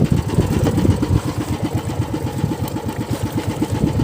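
Small fishing boat's engine idling with a fast, even low chugging.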